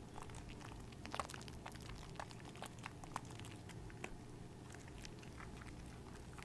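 Hands squeezing and kneading a lathered bar of soap in thick foam: wet squishing with many small, irregular crackles from the lather.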